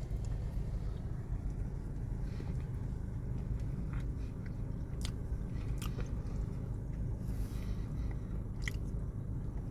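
Someone biting into and chewing loaded fries topped with beef, cheese sauce and Algerian sauce: a few short wet clicks and crackles over a steady low hum.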